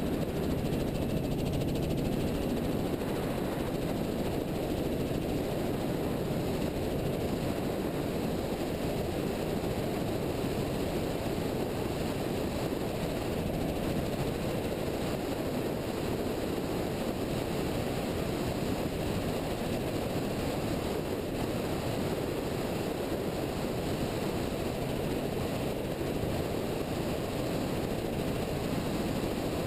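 Helicopter in flight, a steady, dense rumble of rotor and engine noise picked up by a camera mounted on the aircraft as it lifts off and climbs.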